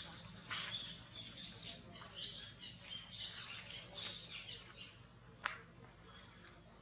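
Infant macaque making short, high-pitched squeaks in irregular bursts, the baby's 'talking'. There is one sharp click about five and a half seconds in, and the calls thin out after it.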